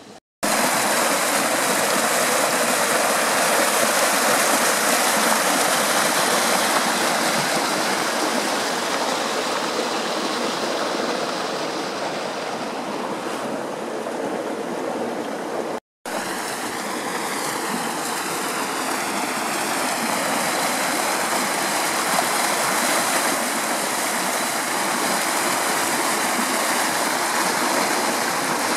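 Hot-spring water rushing steadily along a channel beside the travertine terraces: a constant hiss of flowing water. It cuts out for an instant twice, near the start and about halfway through.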